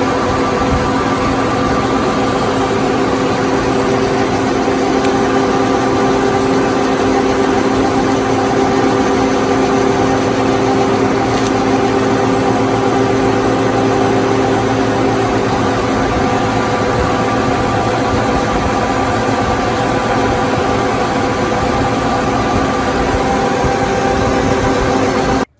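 Metal lathe running steadily, its motor and gearbox giving a constant whine of several steady tones over a mechanical hum.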